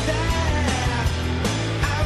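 Rock music with distorted guitar, drums and a singing voice, a steady beat.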